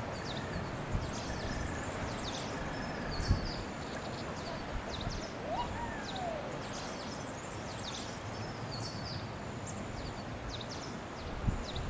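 Outdoor ambience: many short, high bird chirps repeating throughout over a steady low rumble, with a single rising-and-falling whistle about halfway through and a dull thump about three seconds in.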